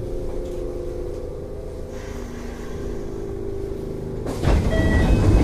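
Inside a Kintetsu 3200 series electric train drawing to a station stop: a steady machinery hum with a few faint whining tones. About four seconds in, it gives way suddenly to a louder clatter with a strong low hum and short repeated beeping tones.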